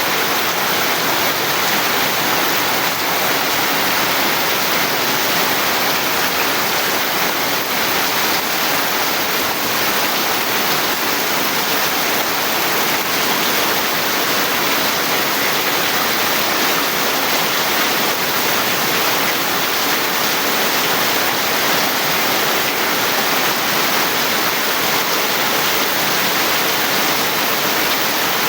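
Heavy rain falling, a steady dense hiss without a break.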